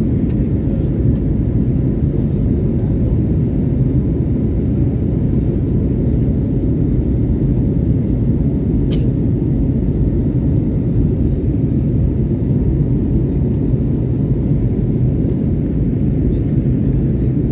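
Steady low rumble of an airliner's jet engines and rushing air after takeoff, even and unbroken, with a single short click about halfway through.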